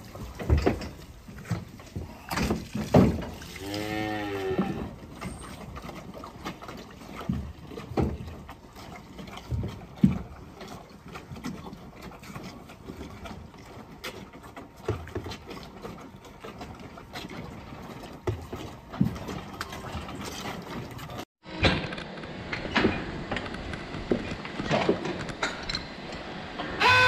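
A calf moos once about four seconds in, over scattered knocks and clanks.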